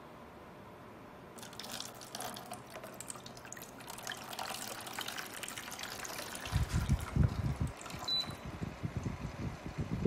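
Water poured from a jug into the top water tank of a BREEZEWELL evaporative air cooler, splashing over the ice pack inside. It starts about a second and a half in and runs until near the end. Over the last few seconds a low gusty rumble buffets the microphone, and there is a short high beep about eight seconds in.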